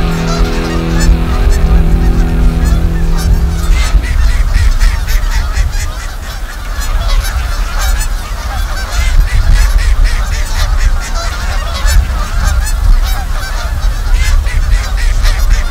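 A flock of waterfowl calling, many short honking calls overlapping, over a steady low rumble. A held music chord fades out about four seconds in.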